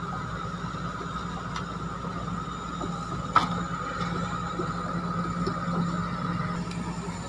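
Hitachi Zaxis 210MF hydraulic excavator travelling slowly on its steel crawler tracks: the diesel engine running steadily under a continuous high whine, with a single sharp knock a little over three seconds in.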